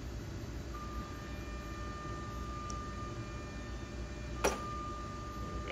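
Side cutters snipping once through the stainless wire braid of a shielded cable, a single sharp click about four and a half seconds in, over steady room noise with a faint high steady whine.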